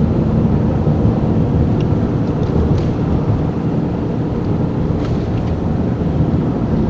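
Steady road and engine noise heard from inside the cab of a vehicle cruising along a highway: an even low rumble with a faint hum.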